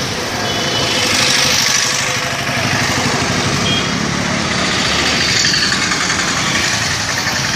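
Street traffic with motorcycles passing close by, their engines running over steady road noise; the sound swells twice as vehicles go past.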